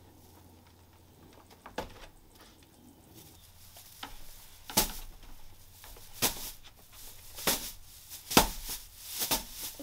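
A pillowcase full of dried wheat heads being whacked down again and again to thresh the grain: about six dull thumps, starting a couple of seconds in and coming closer together near the end.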